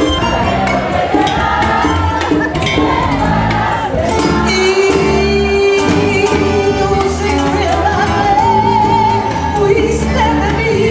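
A woman singing into a microphone with a live band: electronic keyboard, bass line and hand drums keeping a steady beat. Her voice holds long notes in the middle and again near the end.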